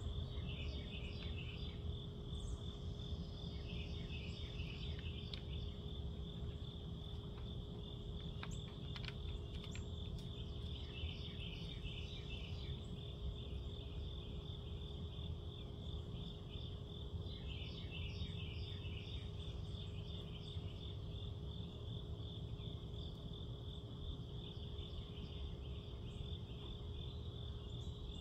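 Night insects, crickets among them, chirping in a steady pulsing chorus, over a low steady hum.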